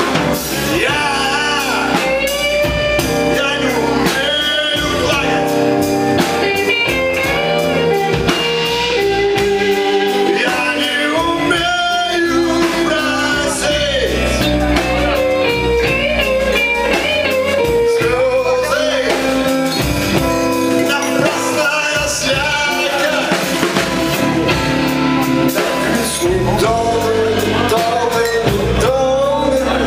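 Live rock band playing: electric guitars and drum kit, with a singer's voice carrying the melody throughout.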